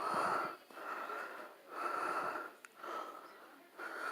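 Wheezy, whistling breaths, five of them at about one a second, each a short noisy rush with a thin whistle in it.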